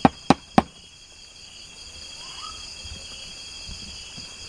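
Steady chorus of night insects such as crickets, a layered high-pitched trill held without a break. Three sharp clicks come close together in the first second.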